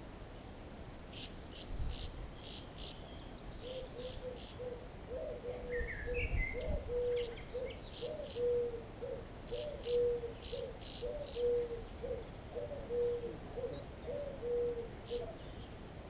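A bird giving a long series of low hooting notes, about two a second, over high-pitched chips and a brief chirp from other birds.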